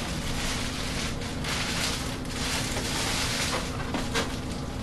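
Clear plastic packaging bag rustling and crinkling as it is worked off a foam RC jet fuselage being lifted out of its box, with a few light knocks near the end.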